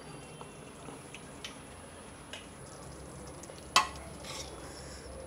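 Steel ladle stirring cooked whole masoor lentils in an aluminium pressure cooker: soft scraping and a few light clicks, with one sharper clank of the ladle against the pot about four seconds in.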